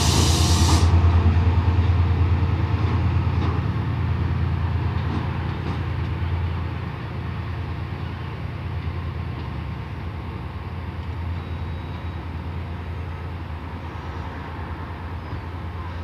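Class 68 diesel-electric locomotive's V16 engine running with a low throb as it pulls away along the platform, fading steadily as it draws off. A burst of air hiss cuts off about a second in.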